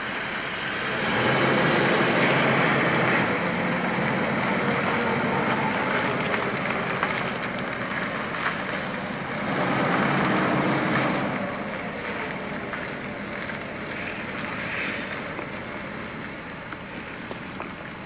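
A car's engine and tyres as it pulls away and drives off down the road, swelling twice and then fading, with wind noise on the camcorder microphone.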